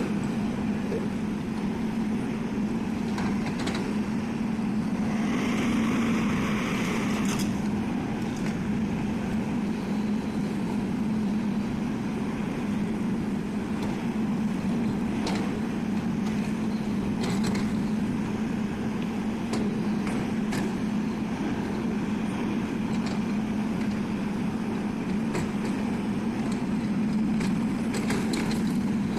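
Hydraulic excavator's diesel engine running steadily with a low hum, with a brief rushing noise about five seconds in and faint scattered clicks.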